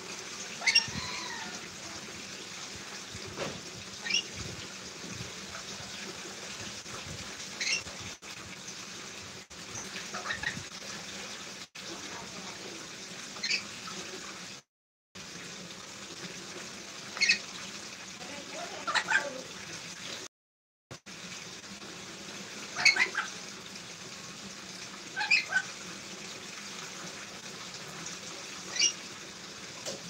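A black-capped lory giving about ten short, sharp calls, a few seconds apart, over a steady hiss.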